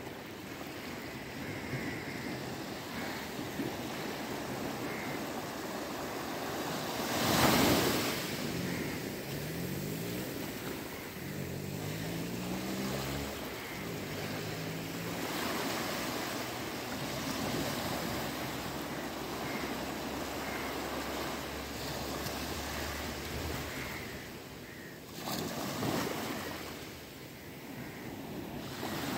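Small waves breaking and washing up a sandy shore, a steady surf wash, with a brief louder rush about seven seconds in and a smaller one near the end.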